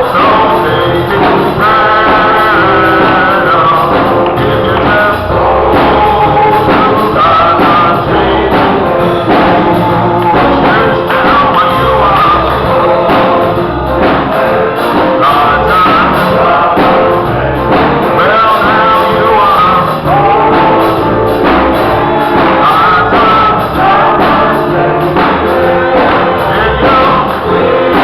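Gospel song sung with instrumental accompaniment, voices carrying the melody over a steady beat.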